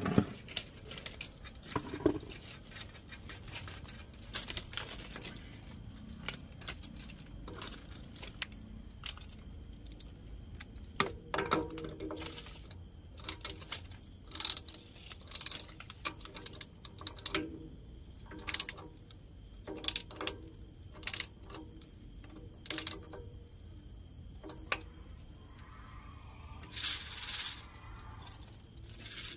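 Irregular metallic clicks and clinks of a hand tool working the bottom fitting of a transformer's silica gel breather, with a longer rattle near the end.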